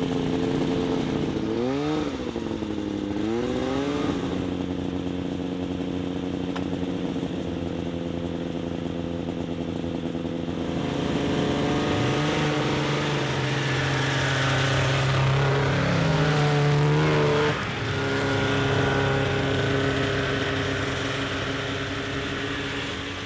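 Snowmobile engine running, revving up and down twice a couple of seconds in, then climbing in pitch about twelve seconds in and holding higher until it drops back about six seconds later.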